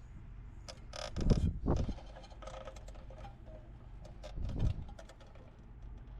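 Handling noises: scattered clicks, rustling and scraping, with heavier thumps about a second in, just under two seconds in and again near five seconds, over a steady low hum.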